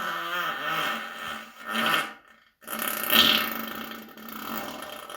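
A person's long, drawn-out fart in two stretches: the first ends about two seconds in, and after a short break a second, louder one starts and trails off near the end.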